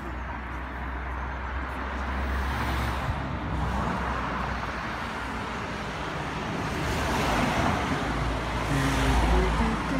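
Road traffic passing, a steady noise that swells twice as vehicles go by, with a low rumble underneath.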